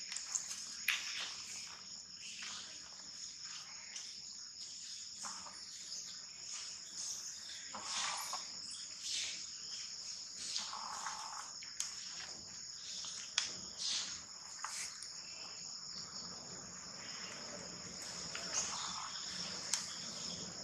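Steady, high-pitched chorus of insects, with scattered light clicks and rustles.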